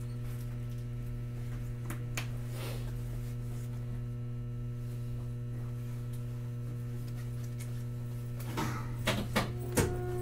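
Standing electric tram, a Hakodate City Tram 3000-series car, giving off a steady electrical hum from its onboard equipment while stopped at a stop. A few short clicks and knocks come near the end.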